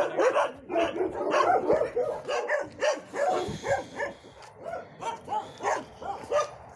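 Several dogs barking, a rapid overlapping run of barks at first, then fewer, single barks spaced apart toward the end.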